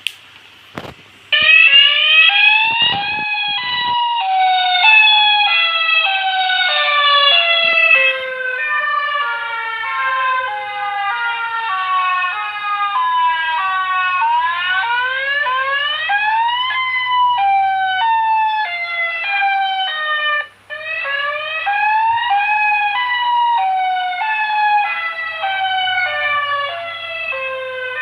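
EWOS tornado warning siren system sounding a test: several tones at once in quick, repeated falling pitch sweeps, switching to rising sweeps at times. It starts about a second in after a few clicks and cuts out briefly about 20 seconds in.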